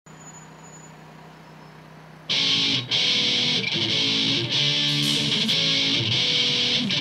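A faint steady hum, then about two seconds in loud rock music starts suddenly, led by strummed electric guitar.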